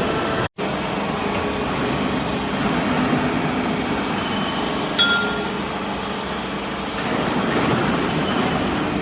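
Hydraulic baler for aluminum chips running with a steady mechanical noise. About five seconds in, one sharp metallic clank rings briefly. The sound drops out for an instant about half a second in.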